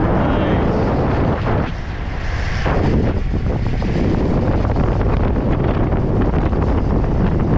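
Wind rushing over the microphone of a camera carried on a road bicycle at speed, a loud steady buffeting that eases briefly about two seconds in.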